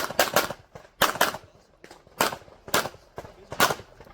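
Pistol shots on a competition range during a timed stage: about seven sharp reports, the first few in quick pairs, then single shots about half a second to a second apart, each with a short echo.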